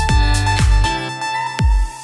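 Electronic dance background music with a pounding kick drum under a held high synth note; about halfway through the bass and beat drop out, leaving the held note, with one more kick near the end.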